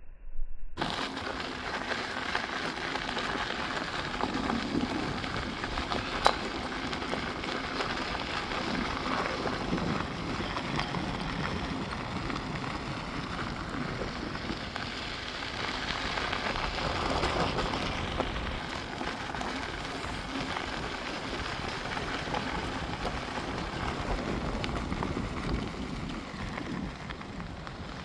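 Steady rushing wind and road noise on the microphone while riding an electric unicycle, with a single sharp click about six seconds in.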